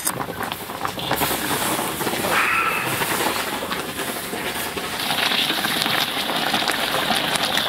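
Water boiling hard in a large steel wok, a steady loud hiss of steam, with a brief high squeak about two and a half seconds in.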